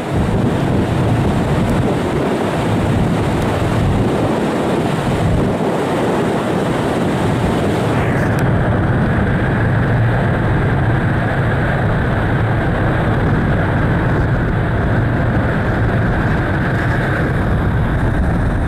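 Steady rumble of a car ferry's engines and deck machinery heard on the open deck. About eight seconds in the hiss drops away and a steady high whine sets in, fading near the end.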